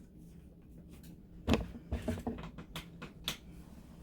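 Handling sounds of objects on a tabletop: a sharp tap or knock about a second and a half in, then several lighter clicks and taps.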